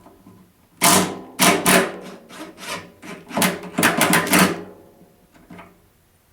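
Hammer blows on the metal of a snowthrower's auger assembly: a quick, uneven run of about a dozen sharp strikes, starting about a second in and stopping at about four and a half seconds.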